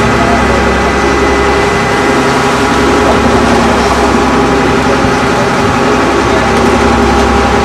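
Ferry boat's engine running steadily, a loud, even drone.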